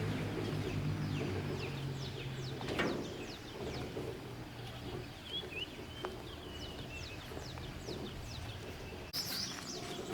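Small birds chirping repeatedly in short, quick falling notes. A low engine hum dies away about two seconds in.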